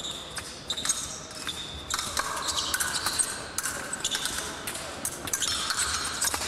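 Épée fencers in a bout: feet stamping and shuffling on the piste, with sharp clicks and knocks, some with a brief metallic ring, from the blades meeting.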